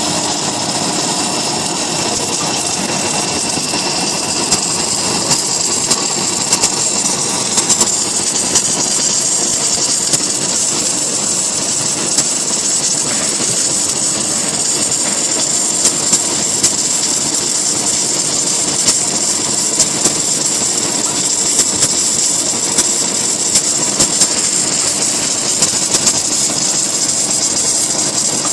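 H-beam fabrication machine running during submerged arc welding: a steady high hiss over a low machine hum, with scattered short clicks.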